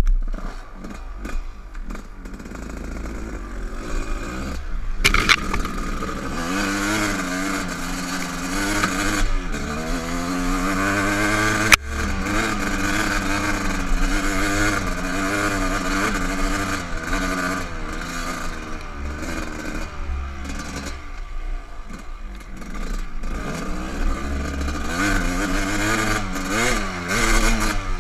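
Dirt bike engine under way, its pitch rising and falling over and over as the throttle is opened and closed. It is quieter for the first few seconds and picks up from about five seconds in, with one sharp click near the middle.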